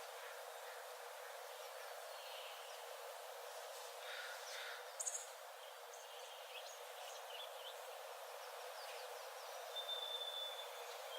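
Forest birds calling over a steady even hiss: a few short chirps around the middle, then one thin high whistle held on a single pitch for about a second near the end.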